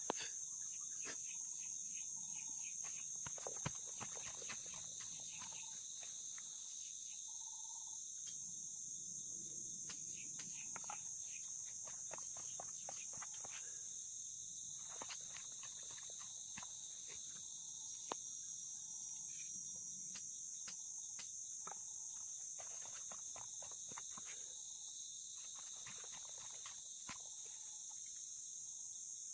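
Steady high-pitched insect chorus of crickets or cicadas, with scattered light clicks and knocks. No chainsaw is running.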